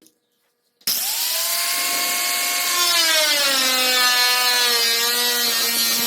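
A power tool working on sheet metal starts abruptly about a second in and runs with a loud hiss and a whine that slowly falls in pitch.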